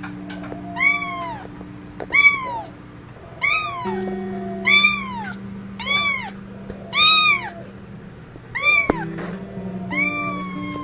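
A kitten meowing over and over, about eight calls each rising and then falling in pitch, roughly one every second or so. Steady sustained background tones run underneath.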